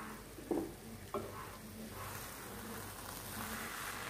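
Sweet sarauli frying in ghee in a non-stick kadai, giving a faint, steady sizzle that grows a little louder about halfway through. Two light knocks come in the first second and a half.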